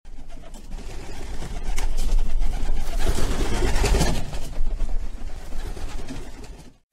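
Doves flapping their wings in flight, a dense fluttering that swells to its loudest in the middle and fades out just before the end.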